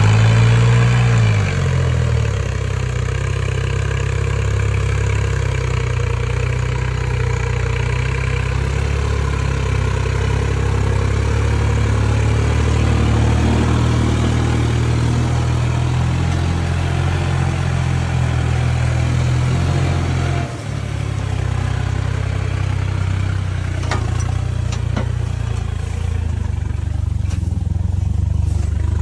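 Tractor diesel engine running hard while it pulls a heavily loaded trolley, revving up at the start and then holding a steady, loud note, with a brief dip about twenty seconds in.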